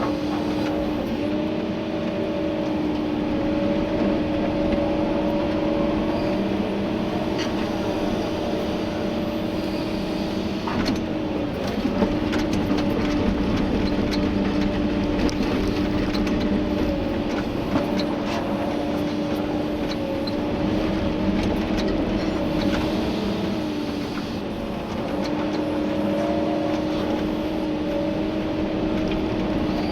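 Komatsu PC290-11 excavator's diesel engine and hydraulics working under load, heard from inside the cab as a steady pitched hum that dips briefly about twelve seconds in and again about twenty-four seconds in. Scattered knocks and clatter of gravel sound over it as the machine digs.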